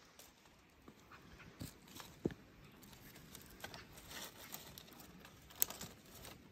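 A metal pot being set on an iron grill over a fire pit, with handling at the pit: faint scattered knocks, clicks and rustles. There is a sharper knock about two seconds in and a high click near the end.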